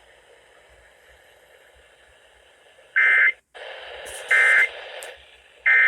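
Emergency Alert System end-of-message code: three short, identical bursts of screechy digital data tones about 1.3 s apart, marking the end of the severe thunderstorm warning. Faint hiss comes first, and louder static hiss runs between the first two bursts.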